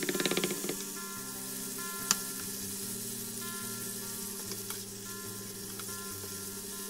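A kitchen knife chops rapidly on a wooden cutting board for the first fraction of a second. Then diced pork belly sizzles steadily in a frying pan as it is stirred with a ladle to brown, with one sharp knock about two seconds in. Soft background music plays underneath.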